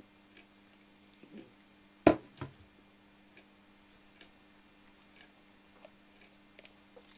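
A clock ticking faintly, about once a second. About two seconds in, a plastic cream tube is set down on a wooden shelf: one sharp knock and a smaller one just after it.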